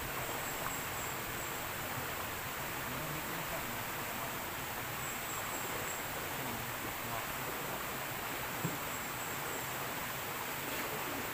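Stream water running steadily over rocks into a forest pool, with faint high-pitched chirping in short runs a few times.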